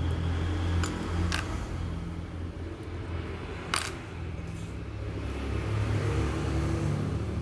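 A steady low rumble like engines or traffic in the background, with a few sharp clicks of small parts and tools handled during a phone teardown. The loudest click comes a little under four seconds in.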